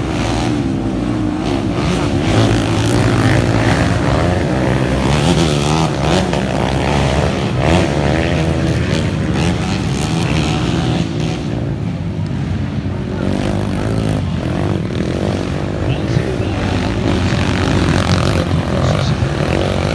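Grasstrack racing motorcycles running hard, their engine pitch rising and falling as they accelerate and pass.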